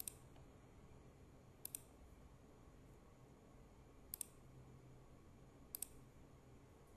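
Computer mouse clicks: four short double ticks, press and release, a second or two apart, over a faint steady low hum.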